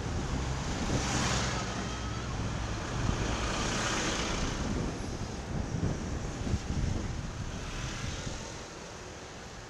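Busy street traffic heard from a bicycle: motor engines running, with a low steady hum early on and rushing swells as vehicles go by. The loudest swell, about four seconds in, is a large lorry passing close alongside.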